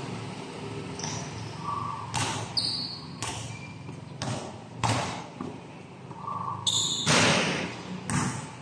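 A basketball bouncing on an indoor court floor: single bounces at uneven intervals of roughly a second, the loudest about two-thirds of the way through.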